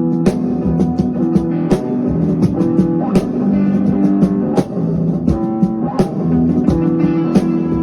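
Instrumental music led by guitar, with held notes over a regular drum beat.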